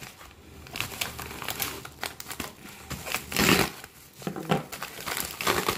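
Packaging crinkling and rustling in irregular bursts as a box is opened and its contents handled, loudest about three and a half seconds in.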